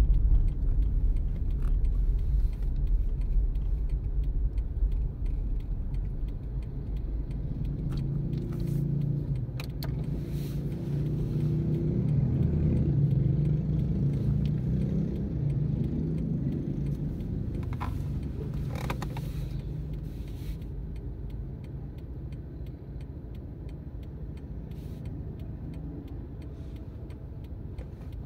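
Car running, heard from inside the cabin: a steady low engine and road rumble while driving, growing quieter in the second half as the car stops and idles at a red light. A few brief hissing noises come in the middle.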